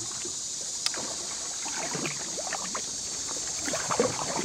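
Kayak paddle strokes: irregular splashes and drips of water as a paddle dips and lifts, with one sharp tap about a second in and the busiest splashing near the end. A steady high hiss lies underneath.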